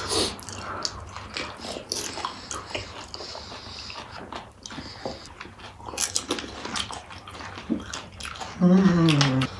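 Mouthfuls of pani puri being chewed: crisp puri shells crunching in irregular bites, a little denser about six seconds in. Near the end, a short hum from a man's voice that falls in pitch.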